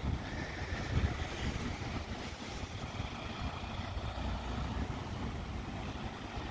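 Wind buffeting the microphone in uneven gusts, over a steady outdoor hiss.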